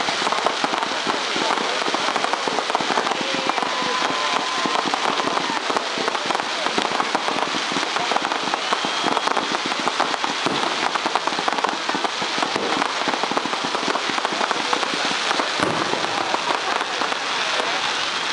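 Fireworks display: a dense, continuous rapid crackling from crackle shells, steady throughout with no single big boom standing out.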